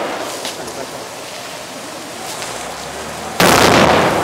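A police grenade going off with a loud sudden bang about three and a half seconds in, its noise lasting about a second. Beneath it runs the steady hiss of a water cannon truck's jets spraying.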